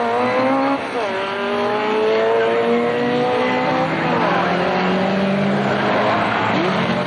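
1960s saloon racing car's engine revving hard as it accelerates out of a corner, its pitch climbing through the gears with upshifts about a second in and about four seconds in.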